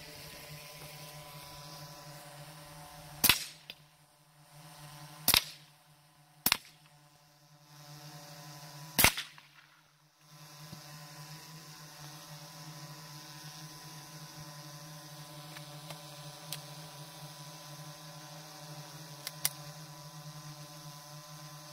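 Four pistol shots at uneven spacing: two about two seconds apart, a third a second later, and a fourth two and a half seconds after that. A few faint clicks follow much later.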